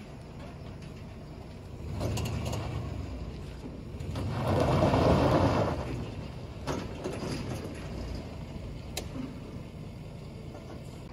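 Truck backing a loaded gooseneck trailer: engine and rolling trailer noise swelling twice, loudest about halfway through, with a single sharp click later on.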